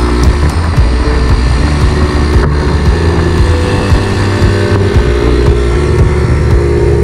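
Background music with a steady beat over a low, droning bass.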